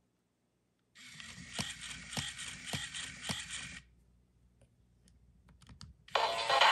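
Hasbro I-Dog Amp'd robotic toy dog's small motor and plastic gears whirring for about three seconds as its head and ears move, with a sharp click about every half second, four in all. Near the end, music starts abruptly and loud.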